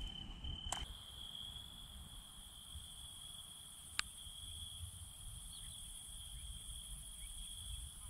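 Faint night chorus of crickets, a steady unbroken trill with a higher hiss of insect song above it. A single sharp click sounds about four seconds in.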